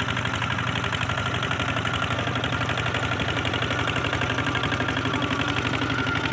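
Single-cylinder diesel engine of a Kubota ZT155 walking tractor chugging steadily with a rapid, even beat as it hauls a loaded trailer through mud.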